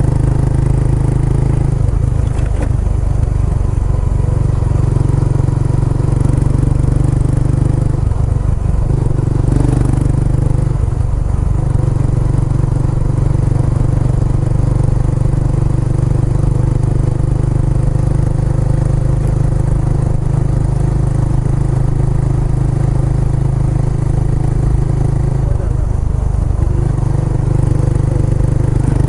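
Kawasaki Estrella's single-cylinder engine running through its aftermarket Yamato muffler, a steady low exhaust note that changes briefly a few times, about two seconds in, around eight to eleven seconds in, and near the end.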